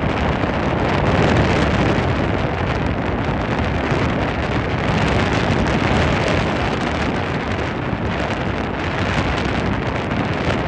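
Wind buffeting the microphone on a speedboat under way: a loud, steady rush, with the boat's motor and water noise blended in.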